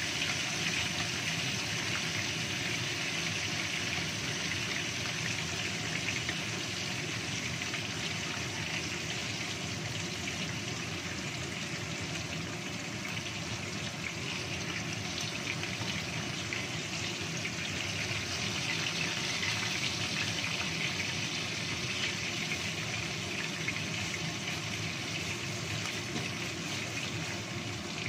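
Whole tilapia sizzling steadily in hot oil in a frying pan, a continuous even hiss.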